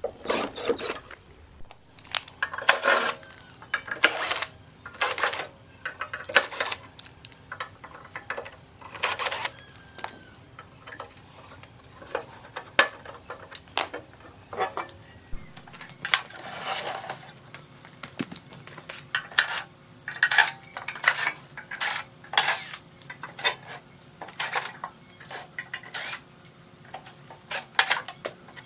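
A string of irregular metallic clinks and knocks, about one a second, from the rusty steel case of a power amplifier and its screws being handled while it is taken apart.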